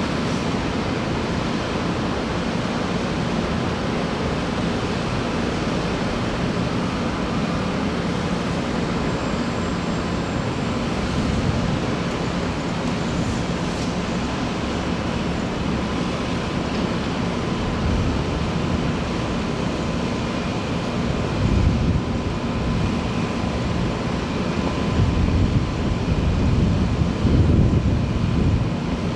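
Steady outdoor background rumble of distant city traffic, with irregular low buffeting bumps, typical of wind on the microphone, in the second half.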